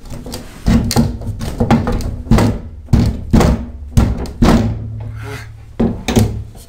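About a dozen irregular wooden knocks and thunks from an old wooden window frame and its folding panels being handled.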